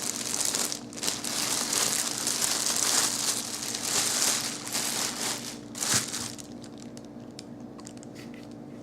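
Packaging crinkling and rustling as the subwoofer is handled in its box, with a sharp knock about six seconds in; after that, only faint handling clicks.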